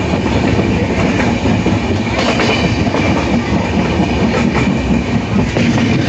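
A train running on rails: steady loud wheel-and-track noise with faint repeated clicks.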